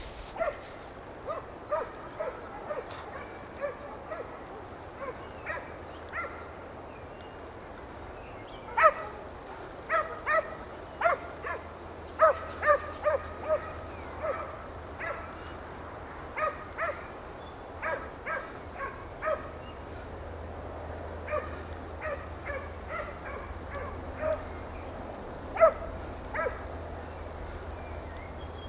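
Hunting hound giving tongue on a hare's trail: short, yelping barks in irregular runs, at times several a second, with a few louder ones standing out.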